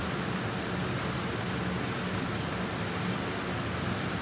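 Black domestic sewing machine running steadily as a seam is stitched through cloth, a continuous mechanical hum.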